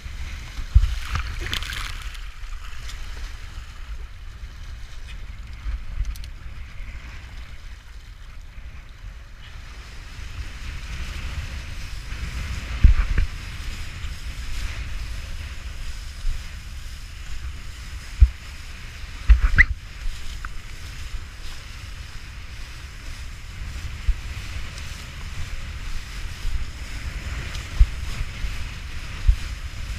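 Strong wind rumbling on the camera microphone and water hissing under a kiteboard skimming fast over choppy water, with a few sharp slaps as the board hits the chop, the loudest one about two-thirds of the way through.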